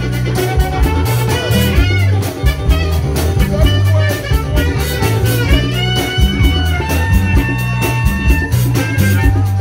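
A live band playing, with a saxophone soloing over a bass line and a steady drum beat; the sax moves through bending phrases, then holds long notes from about halfway through.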